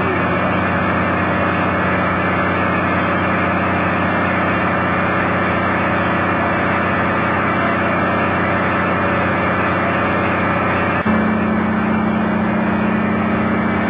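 Diesel engine running steadily. About three quarters of the way through there is a click and the engine note changes abruptly to a different steady hum.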